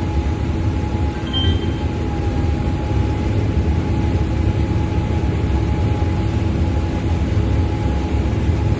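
Large farm diesel engine running steadily under load, a constant low rumble with a steady hum.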